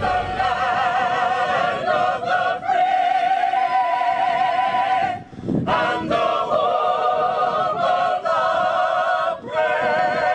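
A mixed choir of men and women singing a cappella, holding long notes with vibrato, with short pauses for breath between phrases about halfway through and near the end.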